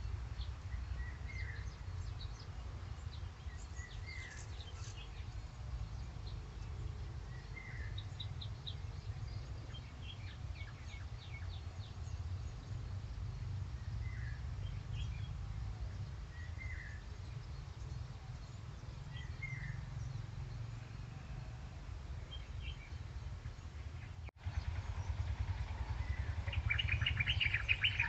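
Outdoor birdsong: one bird repeats a short call every few seconds, while others give quick trills, and dense rapid chattering starts near the end. A steady low rumble runs underneath.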